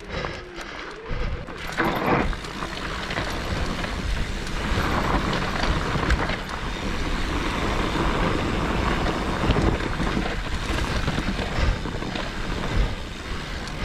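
Mountain bike riding over rough trail: a constant rush of tyre and wind noise with frequent small knocks and rattles from the bike over rocks and roots.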